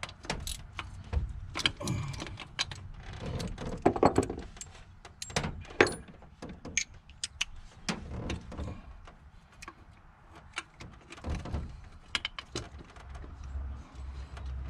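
Irregular metallic clicks and clinks of a hand ratchet wrench and socket working the half-inch bolts on a throttle body, with a few low knocks of the tool and hands against the engine.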